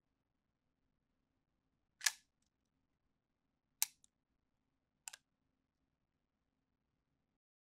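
Three short, sharp cracks from a Hungarian AK-55 rifle being fired, about a second and a half apart, each dying away quickly in a small indoor range.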